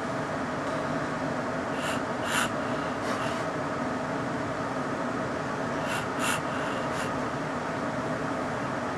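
Steady background hum in a small room, with a few brief, soft hissing puffs about two and six seconds in.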